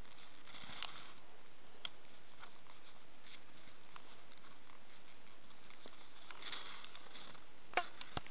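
Faint crunching and rustling of skis, poles and clothing shifting in deep powder snow, with a few sharp clicks near the end.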